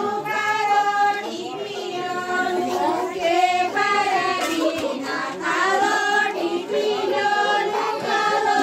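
A group of women singing a chaufula folk dance song together in repeating phrases, each note held for about a second.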